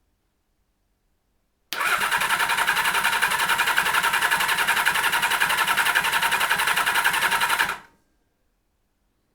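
Kawasaki Z1300 inline-six engine turning over on its electric starter for about six seconds with a fast, even rhythm, without firing, then stopping. It will not start, which the owner puts down to fuelling.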